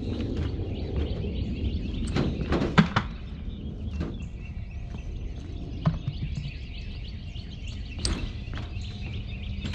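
Footsteps and scattered knocks on a wooden trailer ramp, the loudest a quick pair of thuds about three seconds in, with single knocks later. Steady low outdoor noise underneath and birds chirping.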